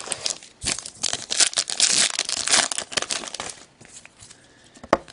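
Plastic wrapper of a hockey card pack crinkling and tearing as it is ripped open, with thinner rustling after it and one sharp tap near the end.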